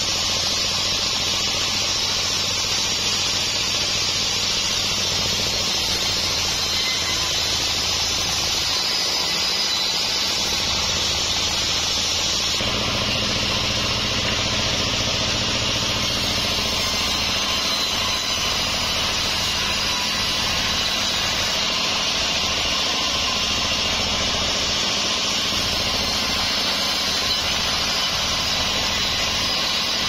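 Homemade band sawmill running, its blade cutting lengthwise through a mahogany log: a steady high hiss of the cut over the machine's hum. The sound shifts abruptly about twelve seconds in.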